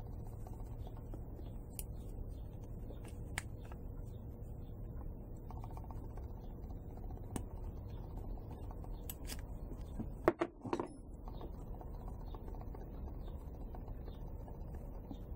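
Light clicks and taps of small metal shafts and plexiglass parts being handled as a small gearbox is taken apart, over a steady low hum. The loudest is a pair of sharp clicks about ten seconds in.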